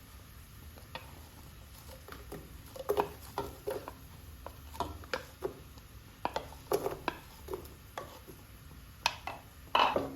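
Kitchen utensils knocking and clinking against pots and dishes during cooking, irregular taps with a short ring, the loudest couple near the end.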